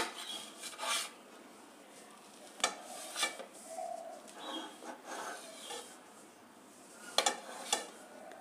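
Kitchen knife cutting through soft steamed rice-flour dumplings on a steel plate, the blade scraping and clicking against the metal. There are a handful of sharp clicks, with soft scraping between them.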